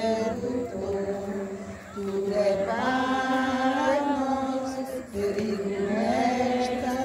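Voices singing a slow hymn invoking the Holy Spirit, with long held notes. The phrases break briefly about two seconds and five seconds in.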